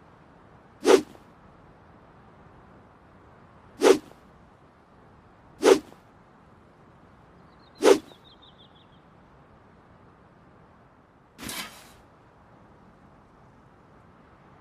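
Longsword swung through the air, four quick swishes a couple of seconds apart, then one longer, softer swish near the end.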